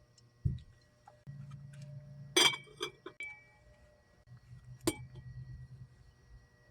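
Glassware clinking a few times as it is handled to filter the gold solution, with a soft thump about half a second in and a sharp clink near five seconds.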